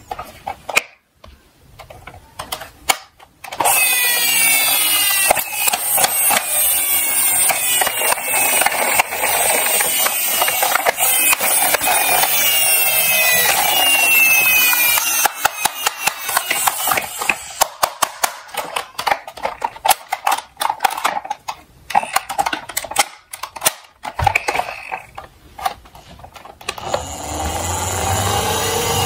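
Diecast toy cars rolling and clattering down a slope: a steady rattling from a few seconds in, then a long run of separate sharp clicks and clacks as the cars knock together, with steady rattling again near the end.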